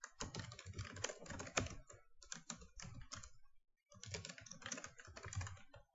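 Typing on a computer keyboard: rapid keystrokes in two runs, with a pause of about half a second some three and a half seconds in.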